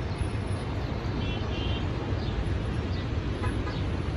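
Road traffic heard from high above a jammed multi-lane road: a steady low rumble of idling and creeping cars and buses, with a couple of faint short high tones about a second and a half in.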